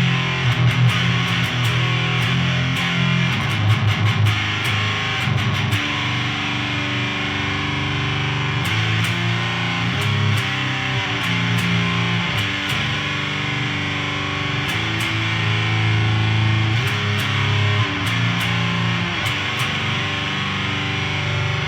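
Electric guitar played through a Siren Pedals Eligos HM-2-style heavy metal distortion pedal into a Randall Diavlo tube amp, with the pedal's volume and distortion turned all the way up. It plays a heavy metal riff: fast picked chugging for the first few seconds, then longer held notes and chords.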